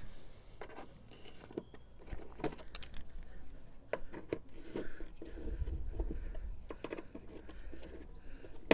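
Scattered light clicks, knocks and scrapes of hands and plastic trim being handled under a car's side sill, with a brief low rumble about two thirds of the way through.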